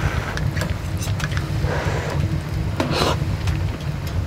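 Small clicks and scrapes of chopsticks against a metal pot and cup as food is lifted out of a simmering pot, with a couple of short swishes, over a steady low rumble.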